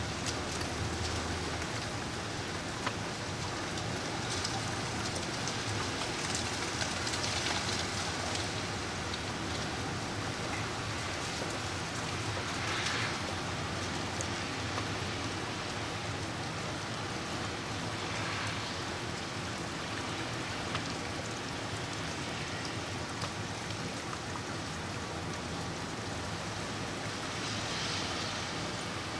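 Freezing rain falling steadily during an ice storm: an even hiss of rain with fine ticking drops. A few brief swells of louder hiss come and go along the way.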